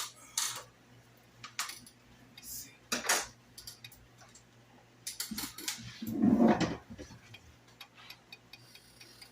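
Kitchen clatter: utensils and cookware clinking and knocking in a string of short, sharp clicks, with a louder, fuller clatter about six seconds in.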